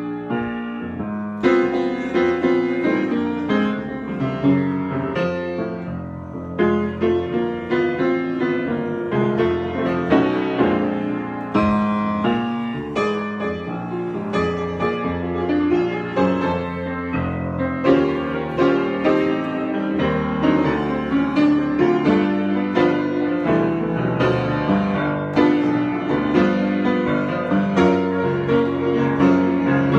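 Solo piano improvisation, played continuously with many chords and runs of notes.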